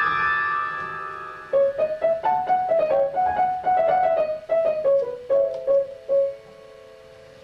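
Grand piano played solo: a high chord struck and left ringing, then a quick run of single notes in the middle register from about a second and a half in, ending on a held note that rings on quietly.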